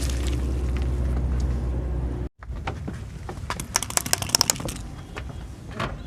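Car engine idling with a low, steady hum. After a sudden cut, a scatter of sharp cracks and snaps clusters about a second later as something brittle is crushed under a car tyre.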